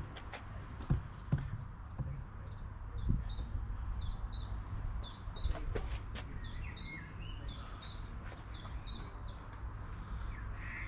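A songbird singing a repeated series of short, high notes, about two a second, over a steady low rumble. A few dull knocks come in the first three seconds.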